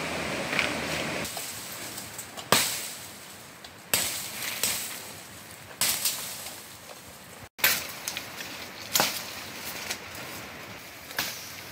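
A large knife chopping into wood: six sharp, separate blows, one every second and a half or so. Before the chopping, a stream's steady rush stops abruptly about a second in.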